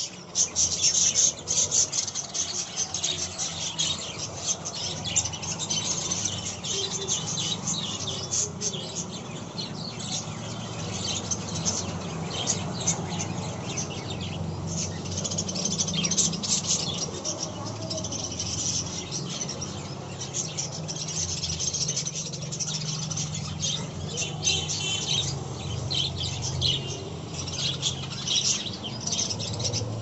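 A flock of budgerigars chattering without pause, a dense mix of short high chirps and warbling calls.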